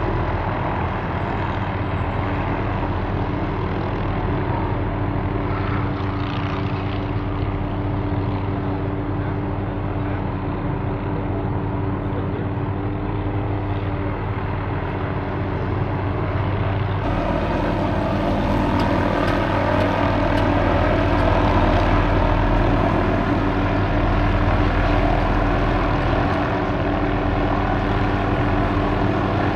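MD 500D helicopter's turboshaft engine and rotors running steadily while it works an aerial tree-trimming saw. About two-thirds of the way through, the sound grows brighter and a little louder.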